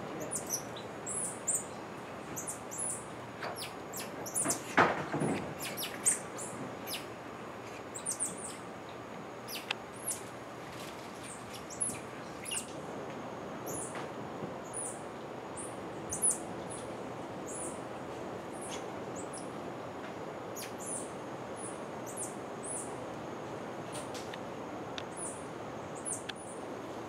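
Many quick, very high-pitched chirps and peeps from Central American squirrel monkeys, thick in the first half and thinning out later, over a steady forest hiss. A louder rustle of branches and leaves comes about five seconds in.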